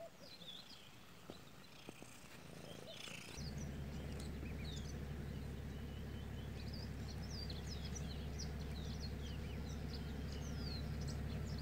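Birds chirping and twittering, many short calls overlapping. From about three seconds in, a steady low rumble sits underneath.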